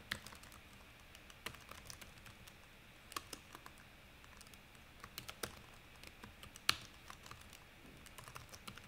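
Computer keyboard typing: faint, irregular keystrokes in scattered clusters with short pauses between them.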